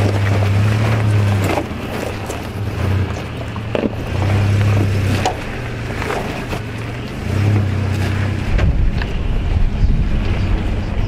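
Toyota 4Runner engine working at low speed as it crawls over rocks, its low note swelling and fading as throttle is fed in and let off, with a few sharp clicks and knocks of rock under the tyres. From about eight seconds in, wind buffets the microphone.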